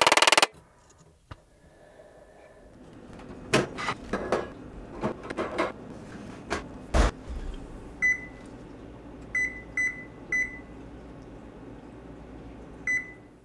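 A few knocks and clatters of handling, the loudest a heavy thud, then an oven's keypad beeping five times as it is set, each beep a short high tone.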